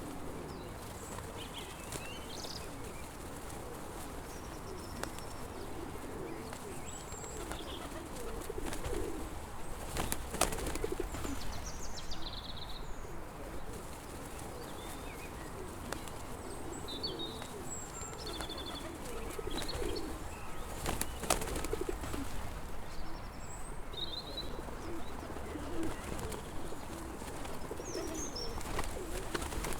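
Pigeons cooing over and over, with small birds chirping high above them. A couple of brief sharp clatters break in, about ten and twenty-one seconds in.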